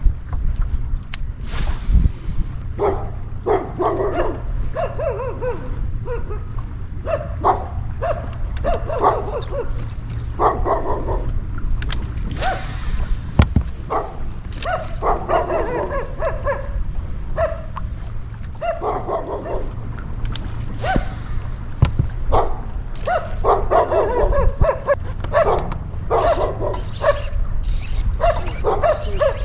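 A dog barking and yipping repeatedly in short runs, over a steady low rumble.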